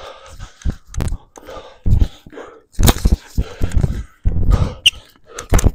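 Tennis rally: racquets strike the ball several times, a second or two apart, with low thuds between the hits.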